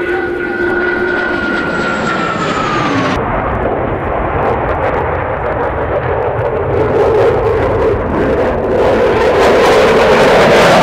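JASDF F-15J fighter's twin Pratt & Whitney F100 turbofans in a display pass. A jet whine drops in pitch as the aircraft goes by; after an abrupt change about three seconds in, a heavy, dense jet roar builds louder toward the end and cuts off suddenly.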